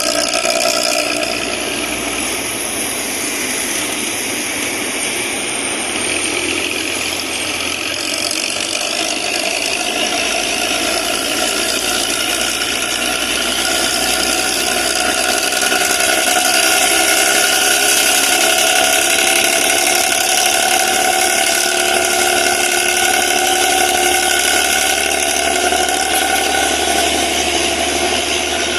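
Aneka Jaya bus's engine running through its loud growling 'ngorok' exhaust, steady and getting louder from about halfway through.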